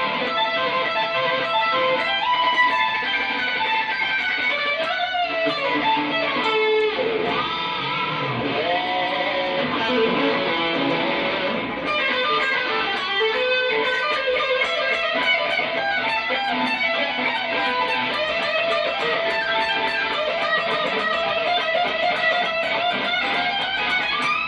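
Music led by electric guitar, playing steadily throughout.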